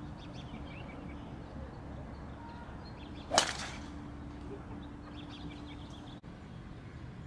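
Driver striking a golf ball off the tee: one sharp crack about three and a half seconds in.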